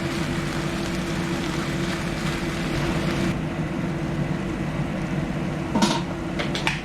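Chicken feet stir-frying in a pan: a sizzling hiss over a steady low hum, the hiss dropping away a little after halfway. Two sharp clicks of a utensil against the pan come near the end.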